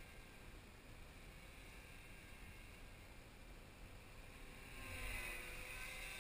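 Small electric RC helicopter (Align T-Rex 250 in a Hughes 500E scale body) flying: a faint, steady whine from its motor and rotor that grows louder about five seconds in, its pitch sliding as it comes closer.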